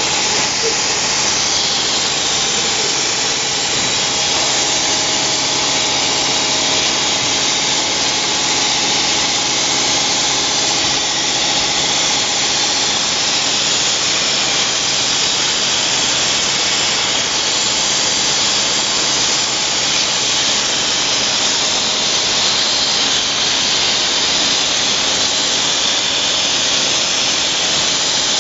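Rotary glass-bottle beer filling machine running: a steady mechanical hum under a constant high hiss.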